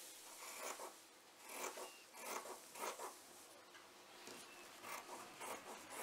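Scissors cutting through embroidery fabric, trimming away the excess: a series of short, irregular rasping snips.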